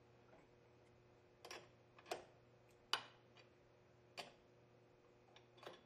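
A wrench clicking against the flange nuts and bolts as they are tightened just to snug: about five sharp, faint clicks at irregular intervals.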